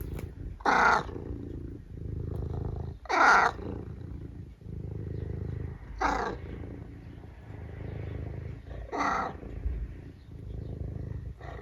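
Tabby cat giving four short, squawking meows about three seconds apart, purring steadily in between.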